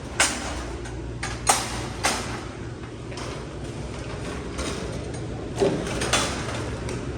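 Baler door and latch being handled: a handful of sharp metal clanks and clicks, spaced irregularly, over a low steady hum.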